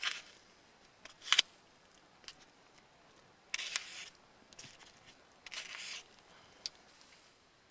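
Handling noises during camp cooking preparation: a sharp click at the start and a louder sharp knock just over a second in. Two short rustling scrapes of about half a second each follow, around three and a half and five and a half seconds in, with a small tick after them.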